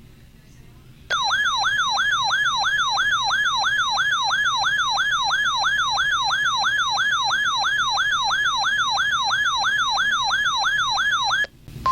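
Electronic warbling alert tone from an emergency alert radio, a siren-like sweep rising and falling about three times a second. It starts about a second in, runs for about ten seconds and cuts off suddenly, with a short steady beep at the very end.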